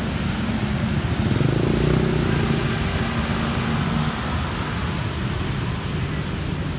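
Road traffic: motorbikes and cars passing on a city street, with one engine growing louder as it goes by in the first few seconds over a steady traffic hiss.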